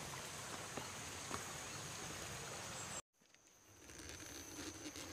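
Faint forest-trail ambience: a steady hiss with a thin high-pitched whine and a few soft footfalls on stone steps. About three seconds in the sound cuts out abruptly to silence and fades back in.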